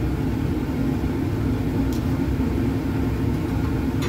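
Steady low rumble of fume-hood ventilation airflow, with two faint clicks, about two seconds in and near the end.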